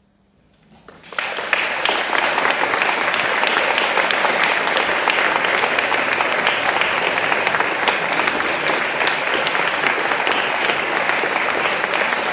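After a moment of quiet, an audience breaks into applause about a second in, then goes on clapping steadily.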